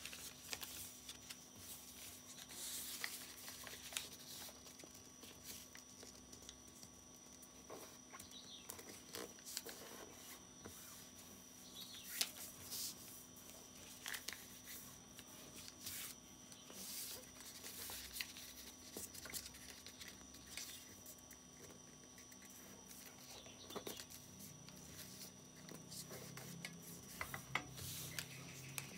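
A sheet of paper being folded and creased by hand: faint, scattered rustles and crinkles, over a steady faint hum.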